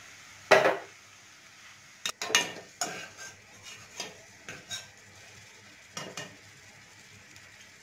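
Wire skimmer scraping and knocking against a metal kadai while scooping fried nuts out of hot ghee, with a faint sizzle underneath. The loudest knock comes about half a second in, followed by a run of lighter scrapes and clinks.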